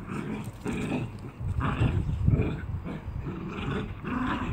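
Small dogs play-fighting, growling in a series of short bursts, about six in four and a half seconds.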